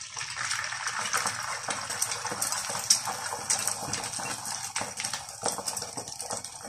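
Beaten egg frying in hot oil in a pan: a steady sizzle with many small crackling pops.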